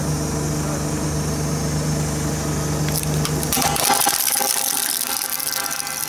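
JCB Vibromax road roller's diesel engine running steadily. About three and a half seconds in, the engine sound drops away and a loud crackling hiss with scattered clicks takes over.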